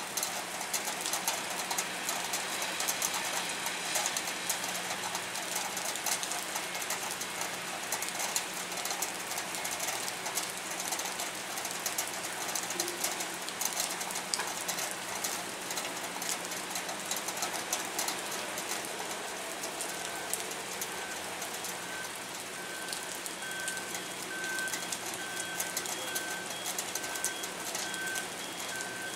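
Steady rain falling on a wet concrete pier and harbour water, thick with tiny drop clicks, over a faint steady low hum. From about two-thirds through, a faint high electronic beep repeats at an even pace.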